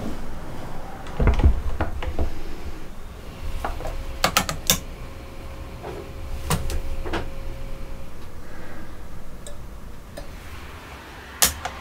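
Irregular clicks, taps and knocks of hand-handled tools and parts: an electric drill being fitted into a wooden drill-press jig, then a digital angle gauge and a steel square set against its drill bit. The heaviest knock comes a little over a second in, with a cluster of sharp clicks around the middle and another near the end.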